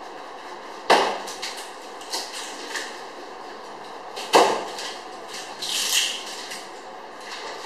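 Packaging of a boxed refrigerator being worked on: two sharp knocks or snaps about three and a half seconds apart, each with a short ringing tail, and a brief hissy rustle at about six seconds.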